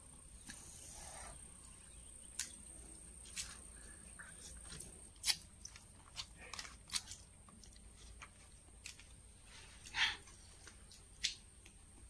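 Faint, irregular mouth smacks and soft clicks of a person chewing rice and chutney eaten by hand, the sharpest about five and ten seconds in.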